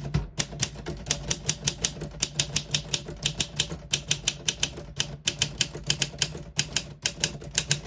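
1964 Olympia SM4 manual portable typewriter being typed on at a quick, even pace, about six or seven keystrokes a second, each type bar striking the platen with a sharp clack.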